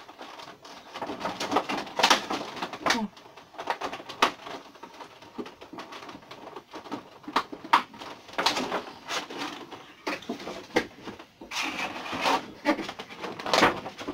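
Cardboard box and plastic packaging of a Funko Pop being handled and pulled apart: irregular rustling, scraping and crinkling with sharp clicks, in several louder bouts.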